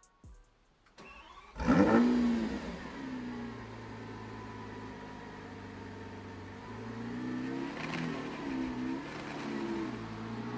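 Lamborghini Aventador SVJ's 6.5-litre V12 starting: a short faint crank, then a loud rev flare about a second and a half in that settles into a steady idle. In the second half the engine note rises and falls a few times.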